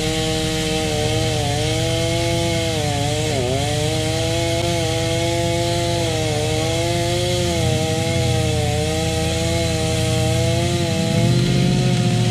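Chainsaw running steadily while cutting into a poplar trunk, its pitch dipping briefly several times as the chain takes the load.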